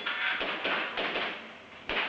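Airsoft pistol firing a quick string of shots, each a short sharp pop: four within about a second, then one more after a pause.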